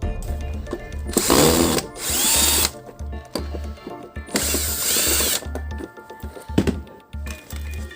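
Power screwdriver running in three short bursts, backing out the housing screws of a vacuum cleaner, its motor spinning up and down with each burst. Background music with a steady low beat plays underneath.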